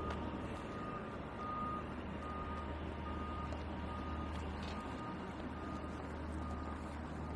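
A single-pitched electronic beep repeating a little faster than once a second, over a steady low hum.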